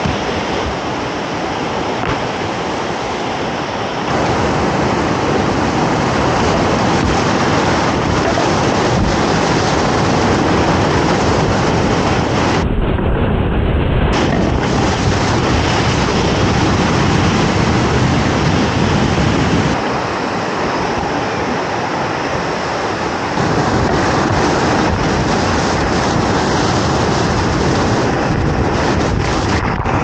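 Rushing whitewater of a steep waterfall, heard close up from a kayak running down it. The water gets louder about four seconds in and sounds muffled for about a second and a half near the middle.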